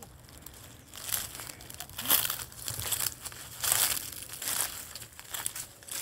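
A run of short crinkling rustles, coming irregularly about once a second.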